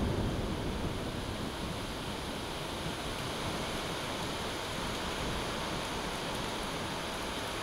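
Steady hiss of thunderstorm rain, with the tail of a thunder rumble dying away in the first second.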